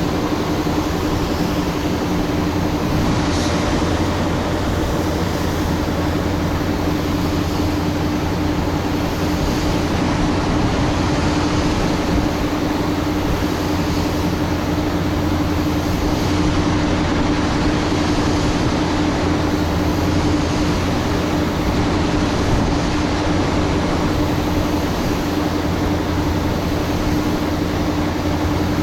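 A machine running steadily: a constant mechanical hum with a steady low tone and a hiss over it, unchanging throughout.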